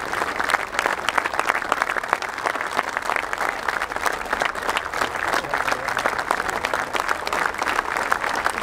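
Large crowd applauding, many hands clapping in a dense, steady mass that holds at an even level.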